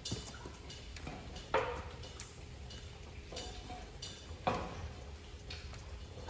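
Feet and hands on a ladder's metal rungs: scattered knocks and light metallic ticks as someone climbs onto it and starts down. There are two louder knocks, about a second and a half in and again about four and a half seconds in.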